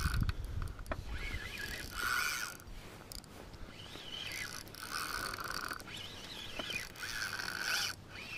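Savage Gear SG8 4000 spinning reel being cranked, its gears whirring in several spells with short pauses between them as a hooked fish is reeled in.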